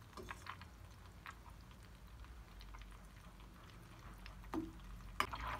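Butter melting and foaming in a small stainless-steel saucepan, giving faint scattered crackles, with a metal spoon clicking against the pan once near the end as the foam is skimmed off.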